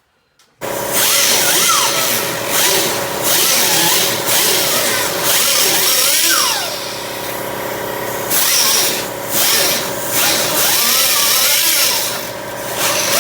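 Handheld electric power tool starting about half a second in and running steadily, grinding a metal bracket piece in repeated passes that swell and ease, with brief squeals as it bites.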